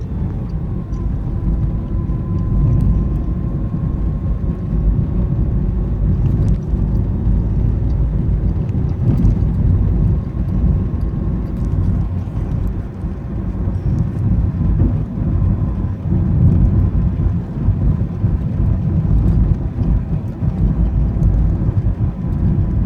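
2013 Nissan Versa on the move: steady low road and engine rumble with a faint, steady high whine over it for long stretches.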